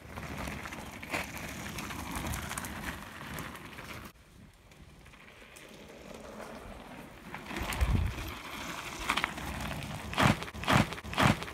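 Mountain bike tyres rolling and crunching over loose dirt and gravel. There is a low thump about eight seconds in and three sharp, loud crunching skids near the end.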